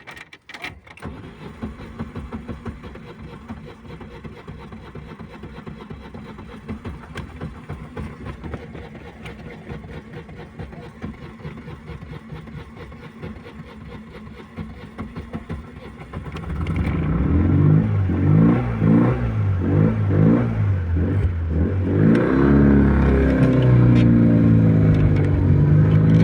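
Freshly repaired Lada four-cylinder car engine starting and idling. After about 16 seconds it is revved up and down repeatedly, louder, with its pitch rising and falling.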